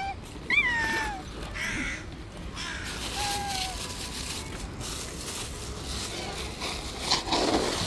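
Street cats meowing: short falling meows, the loudest about half a second in and a fainter one a few seconds later, then a harsh, rasping cry near the end.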